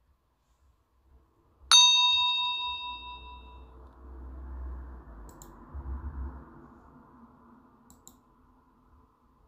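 A single bright bell-like ding, a chime sound effect cueing the start of the question's countdown timer, striking about two seconds in and ringing out over a second or two.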